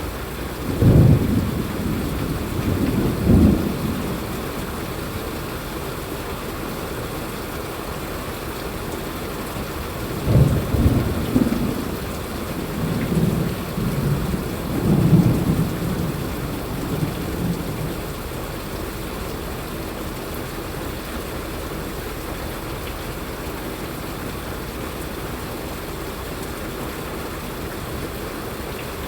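Steady rain with rolls of thunder: low rumbles swell about one and three seconds in, and again in a longer run from about ten to eighteen seconds in, over an even hiss of rain.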